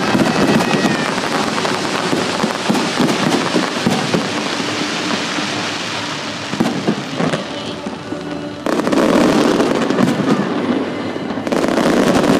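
Fireworks display: aerial shells bursting overhead with continuous crackling and bangs. The barrage eases off briefly, then surges back loudly about two-thirds of the way in and again near the end.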